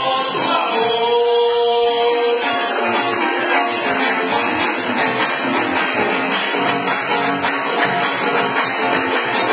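Live Argentine folk music in the rhythm of a gato: acoustic guitar strumming with cajón strokes underneath, and a long held note about half a second in.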